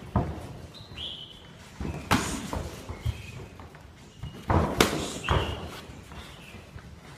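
Muay Thai sparring: gloved punches and shin-guarded kicks landing with sharp smacks, one just after the start, one about two seconds in, and a quick run of three about four and a half to five and a half seconds in.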